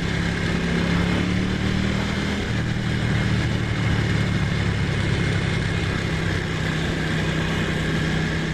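Ducati Monster's V-twin engine running steadily at an even pitch, with a slight drop in pitch about two and a half seconds in.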